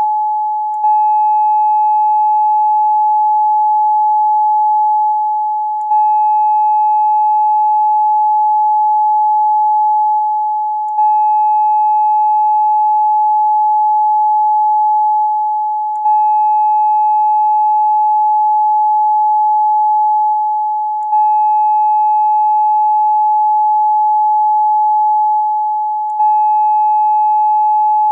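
Steady electronic 852 Hz meditation tone, a near-pure sine with faint overtones. It is looped: about every five seconds it dips slightly and restarts with a small click.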